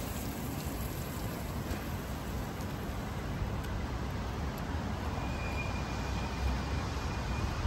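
Steady city road-traffic noise, a low rumble under an even hiss. A faint thin high tone joins it about five seconds in.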